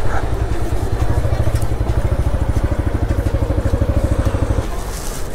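Motorcycle engine idling with even, rapid low pulses, then switched off near the end.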